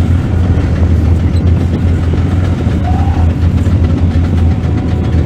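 Heavy diesel engine of a mining excavator running steadily, a loud, even low hum.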